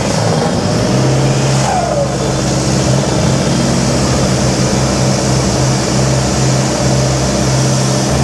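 Toyota Fortuner's 2KD turbo-diesel four-cylinder held at steady raised revs at the drag start line before launching.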